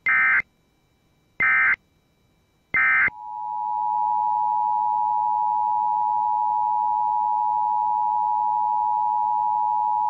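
Three short bursts of Emergency Alert System SAME header data, each about a third of a second, opening an EAS administrative message. They are followed by the two-tone EAS attention signal (853 and 960 Hz sounding together), a steady tone that swells over about a second and holds for about seven seconds.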